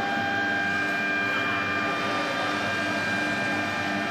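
Steady electric machinery hum with several constant whining tones over a faint hiss, level throughout.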